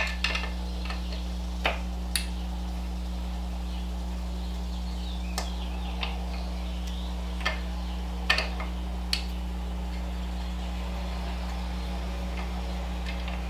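Scattered light clicks and taps of hand tools and small metal parts being handled while working on a dirt bike's rear end, about eight in all, over a steady low hum.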